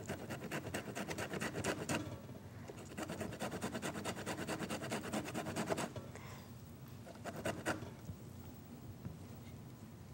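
Lemon rind being zested on a handheld fine grater: quick scraping strokes, about ten a second, in two runs broken by a short pause about two seconds in. The strokes stop about six seconds in, with a few fainter ones after.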